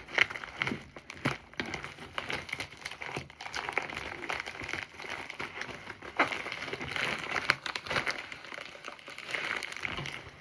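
Shipping packaging being torn open and handled, crinkling and rustling with irregular clicks and crackles.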